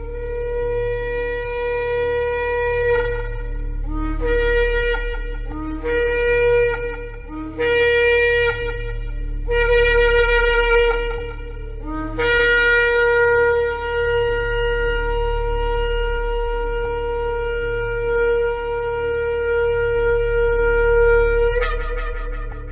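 Shofar blasts: one long blast, then four shorter ones that each start on a lower note and break upward, then a very long held blast that jumps up in pitch just before it ends. A steady low hum sits underneath.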